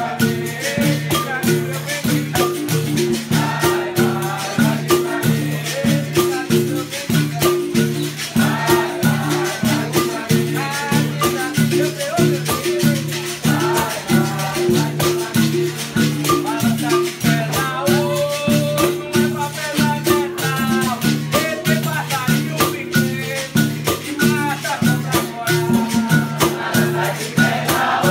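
Capoeira bateria playing a steady rhythm: berimbaus twanging on two alternating notes with caxixi rattles shaking, backed by hand drums. Call-and-response singing comes and goes over the rhythm.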